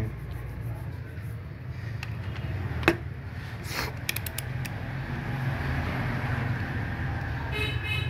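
Steady low background rumble, with one sharp click about three seconds in and a few fainter clicks a second later. A short horn toot sounds near the end.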